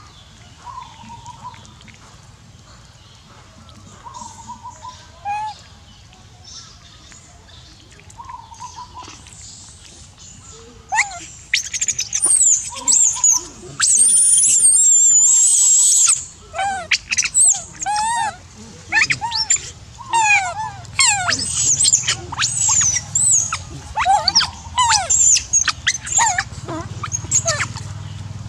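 A young long-tailed macaque screaming: a few faint calls at first, then loud high-pitched shrieks from about the middle on, with one long scream followed by many short, quick squeals.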